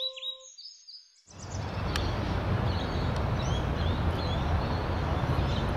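The last note of a synth jingle dies away. After about a second of quiet, outdoor ambience sets in: a steady low rumble with small birds chirping now and then.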